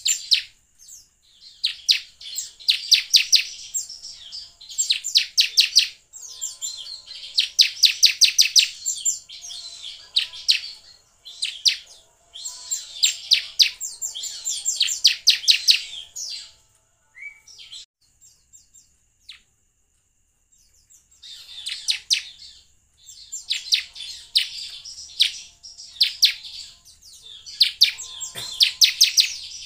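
Bar-winged prinia (ciblek) singing: repeated bouts of rapid, high trilled chirps a second or two long, with a pause of a few seconds in the middle.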